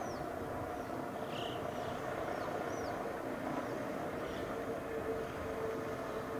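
Pilatus cog railway railcar running, a steady drive hum with a tone that settles and grows stronger about two-thirds of the way through, and faint short high chirps over it.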